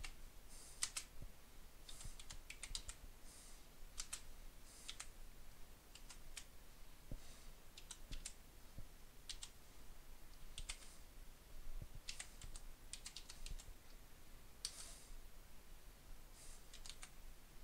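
Typing on a computer keyboard: irregular runs of key clicks with short pauses between them as a line of BASIC code is entered.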